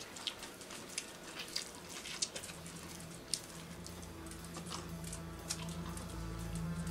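Close-up eating sounds: a person chewing and biting pizza fast, with small wet clicks and smacks. Low background music comes in about two and a half seconds in and grows steadily louder.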